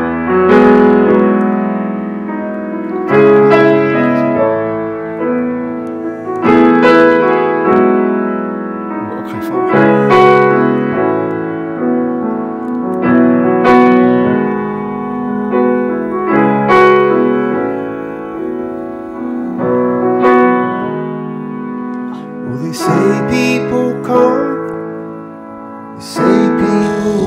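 Background music: a piano playing slow chords, a new chord struck about every three seconds and left to ring.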